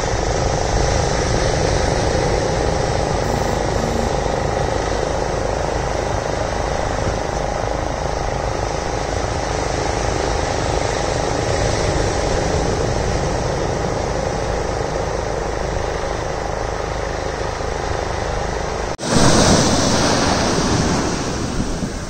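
Steady surf with a steady motor drone running under it, the kind a small fishing boat's outboard engine makes. About 19 seconds in it cuts suddenly to louder, close surf washing up the beach.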